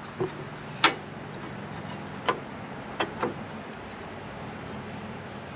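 A handful of separate sharp metal clicks and knocks, about five in the first three and a half seconds, from metal parts being handled and fitted, over a steady low hum.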